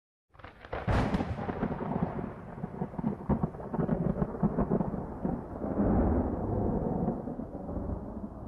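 Thunder: a sharp crack just under a second in, then a long rolling rumble with crackling that swells again about six seconds in and fades near the end.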